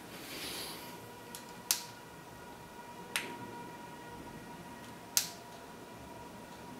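Three sharp clicks one and a half to two seconds apart, as of a small plastic button or switch being pressed, the last as the FPV monitor is switched on. A faint steady high electronic tone sounds under them.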